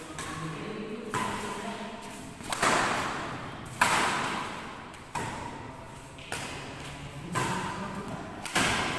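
Badminton rackets striking a shuttlecock in a rally, about eight sharp hits a little over a second apart, each ringing on in the echo of a sports hall.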